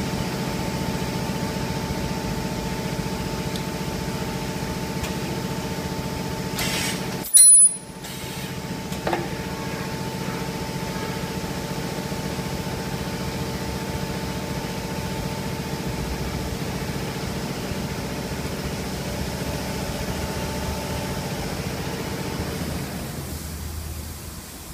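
Ultrasonic welding machine humming steadily, with several held tones. About seven seconds in there is a brief, very loud high-pitched burst, and a click follows a second or two later. The hum fades out near the end.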